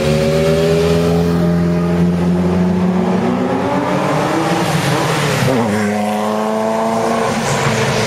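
Ferrari sports car engine accelerating hard, its pitch climbing steadily, dropping at a gearshift about five and a half seconds in, then climbing again.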